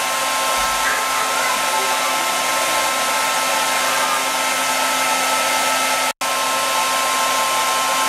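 Vitek hair dryer running steadily: a rush of air with a constant whine from the motor. The sound drops out for an instant about six seconds in.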